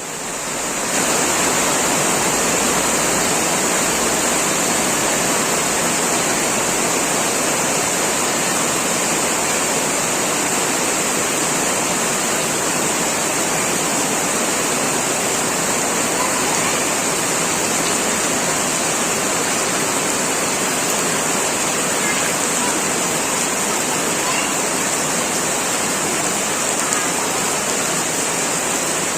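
Heavy tropical rain pouring down steadily, a dense even hiss that swells up in the first second and then holds.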